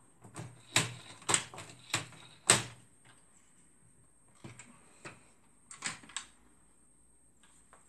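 Sharp plastic clicks and knocks as the parts of a printer fuser unit are handled and snapped together during reassembly, five quick ones close together, then a few sparser ones.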